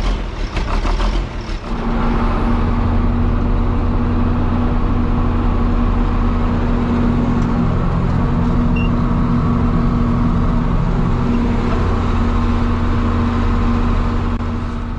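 John Deere tractor's diesel engine running steadily under way, heard from inside the cab, from about two seconds in.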